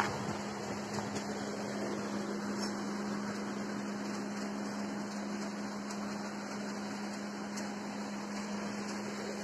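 Steady low hum over an even background hiss.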